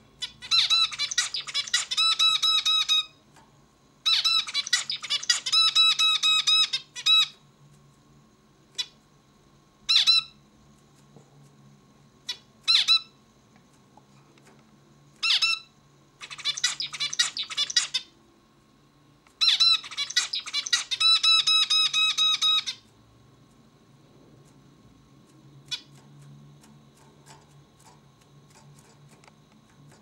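Male zebra finch singing: four bouts of its rapidly repeated song phrase, each two to three seconds long, with single short calls between them. The song stops about two-thirds of the way through.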